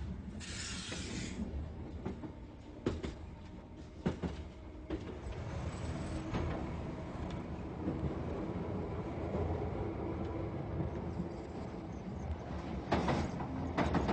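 London Underground train running with a steady low rumble and rail clatter. There is a short hiss about half a second in, and sharp clacks near three, four and thirteen seconds.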